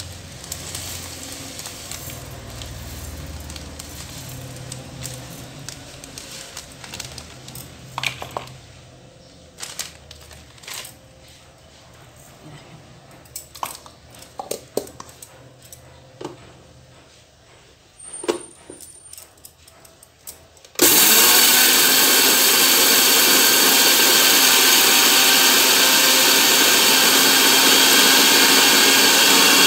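A few scattered clicks and knocks, then about two-thirds of the way in an electric kitchen mixer grinder starts suddenly and runs steadily, grinding whole cumin seeds into powder.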